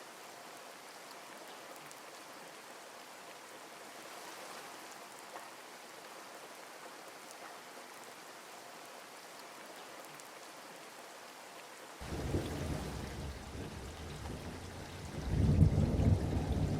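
Steady rain hiss, then rumbling thunder from about twelve seconds in, growing louder near the end.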